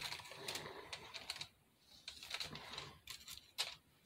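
Small artificial craft carrots and decorations being handled, with light rustling and clicking in three short bursts.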